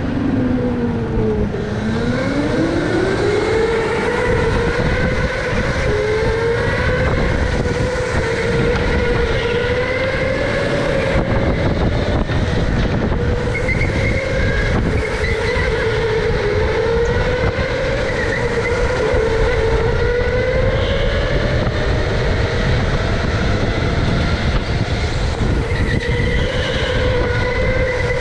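Electric go-kart's motor whining, its pitch dropping about a second in and climbing again, then rising and falling with speed through the corners, over a steady low rumble.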